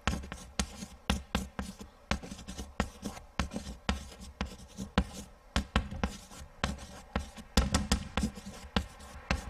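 Chalk writing on a blackboard: an uneven run of sharp taps and short scratching strokes, two or three a second.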